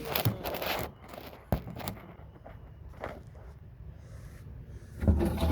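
Rustling and scraping handling noise, with a sharp click about one and a half seconds in and a fainter one near three seconds.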